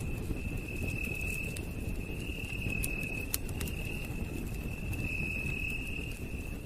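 Campfire crackling, with scattered sharp pops over the steady low rush of the flames, while a night insect trills in even, high-pitched pulses of about a second each, one after another.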